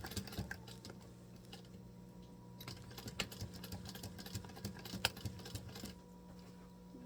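Sewing machine stitching leather stops just after the start; its motor then keeps humming steadily until near the end while scattered clicks and taps sound as the work is handled.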